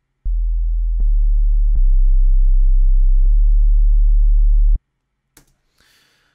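Sub-bass 'under bass' synth line played solo: a very deep, steady tone, pitched below everything else in the cue to fill a cinema subwoofer, running through four held notes with a small click at each note change and cutting off about three-quarters of the way in. A faint rustle follows near the end.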